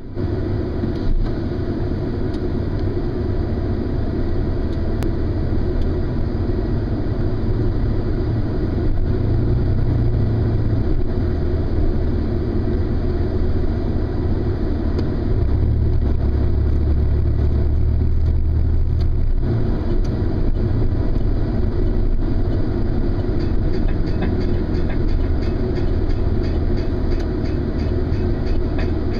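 Car engine and road noise heard from inside the moving car: a steady low rumble that swells twice as the car speeds up and eases off.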